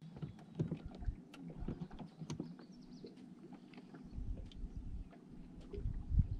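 Water lapping against the boat's hull: irregular small clicks and slaps, with a low rumble that grows stronger from about four seconds in.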